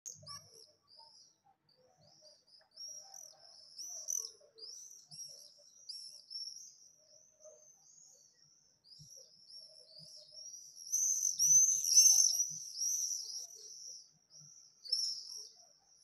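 Swifts screaming in flight: a run of short, shrill, high screams repeated over and over, swelling to their loudest a little past the middle as the birds pass close, then thinning out.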